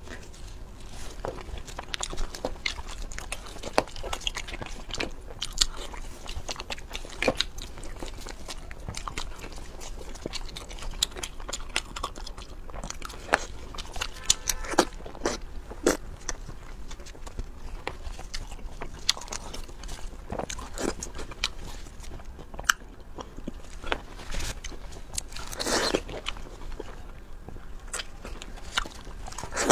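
Close-miked eating sounds: crunching bites, chewing, and the small clicks and crackles of food being peeled and handled by fingers, with one louder crunch near the end.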